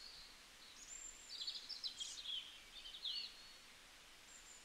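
Faint birdsong ambience: small birds chirping and twittering in high, quick calls, thickest in a cluster from about one to three seconds in.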